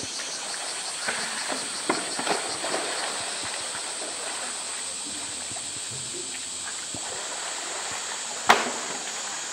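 Polar bear splashing in a pool while shoving a large plastic roly-poly toy against the concrete wall, giving a run of knocks and splashes in the first few seconds and one sharp, loud knock near the end. A steady high drone of cicadas runs underneath.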